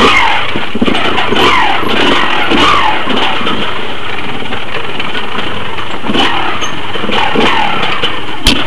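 Off-road dirt bike engine running under load, its revs swinging up and down repeatedly as the throttle is worked.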